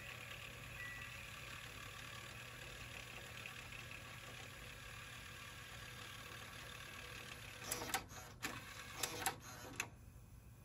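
Pioneer CT-3070R cassette deck winding tape at speed with a faint steady whir during a program search. It ends in a run of about six sharp mechanical clicks and clunks from the tape transport as it stops winding and switches into play, after which the whir drops away.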